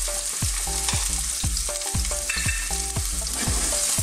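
Sliced onion sizzling in hot oil in a frying pan, stirred with a wooden spatula, over background music with a steady beat.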